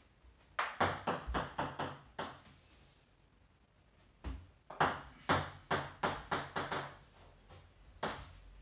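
Table tennis ball and paddle during left sidespin serves: two quick runs of sharp clicks, each a paddle strike followed by the ball bouncing on the table, then one more click near the end.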